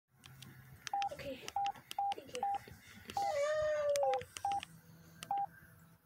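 Samsung SGH-A117 keypad tones: about eight short, identical beeps, each with a key click, as the buttons are pressed at an uneven pace to move through the menus. In the middle a louder, drawn-out, wavering voice-like sound lasts about a second.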